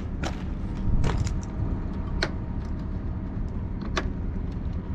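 Steady low rumble with a few scattered sharp clicks.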